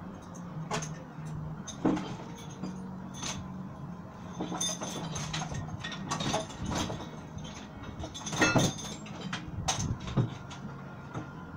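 Scattered light clinks and knocks, several a few seconds apart and the loudest about 8.5 s in, over a faint steady hum.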